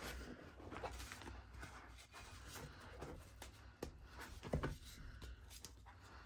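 Hands squeezing and crumbling dry reformed powder blocks in a bucket. It makes soft, gritty crunching and rustling, with a sharper crunch about four and a half seconds in as a pressed block breaks apart.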